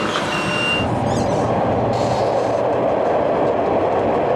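Shanghai metro train running, heard from inside the car: a steady rushing rumble of the carriage on the rails. A steady high beep stops about a second in.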